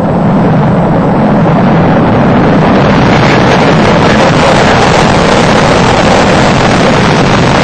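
Space Shuttle Discovery climbing on its two solid rocket boosters and three main engines seconds after liftoff: a loud, steady rocket roar.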